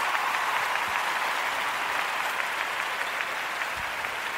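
Audience applause, a dense patter of clapping that slowly fades.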